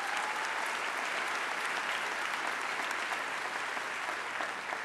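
A large audience applauding: many hands clapping at once in a steady, even patter.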